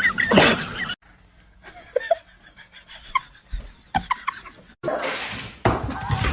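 A person laughing for about the first second, then, after a sudden cut, a quiet stretch with a few short, faint high sounds, and a louder steady hiss-like noise from near the five-second mark.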